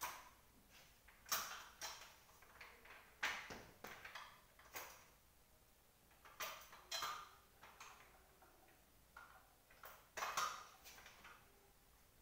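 Faint, irregular clicks, scrapes and light knocks of hands working on the parts of an executive office chair under repair, coming every half second to second with gaps.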